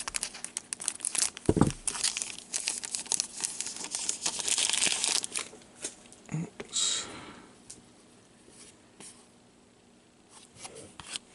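Trading card pack wrapper crinkling and tearing as it is opened, busiest for the first five seconds, with a soft thump about a second and a half in; after that only a few faint rustles.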